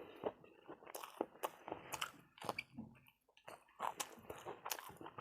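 A person chewing and biting food close to the microphone, with irregular short crunching and wet smacking clicks.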